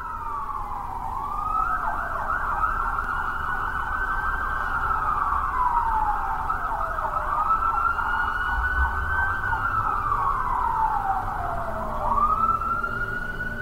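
Emergency-vehicle siren wailing, its pitch rising and falling slowly about once every five to six seconds, over a low rumble.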